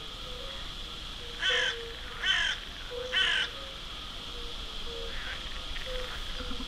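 A crow cawing three times, harsh calls less than a second apart, over a steady high background drone.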